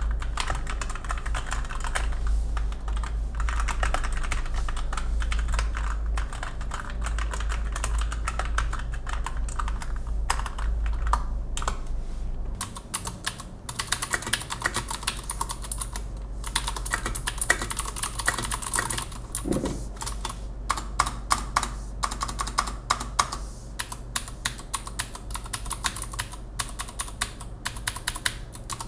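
Typing on a Keychron mechanical keyboard with Gateron switches. Fast, dense keystrokes run for the first half. About halfway through the typing becomes sparser, with sharper separate key clicks.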